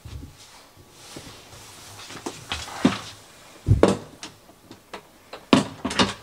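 A broom handle knocking against and snapping into a plastic clip-style wall holder: a series of clicks and knocks, with a dull thump near the middle and a cluster of sharper clicks near the end.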